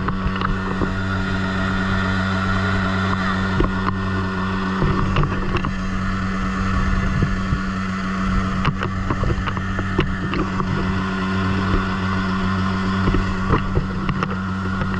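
A small open motorboat's engine running steadily under way, a constant low drone, with water and wind rushing past the hull and a few light knocks.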